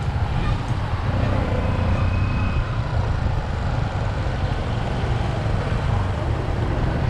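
Motorcycle engine running at low speed, a steady low rumble, with wind noise on the microphone.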